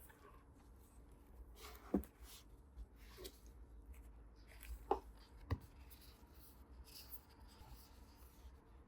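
Soft rustling and scraping of keyboard packaging being handled, with a few light taps: one about two seconds in and two close together around five seconds.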